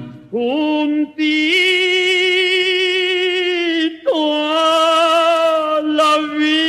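A male ranchera voice holding two long, unaccompanied notes with wide vibrato, sliding up into each; the mariachi band drops out.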